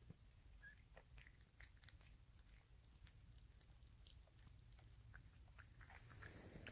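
Faint, irregular wet chewing: a mother cat eating the placenta and umbilical cord just after giving birth, the normal cleaning-up of the afterbirth.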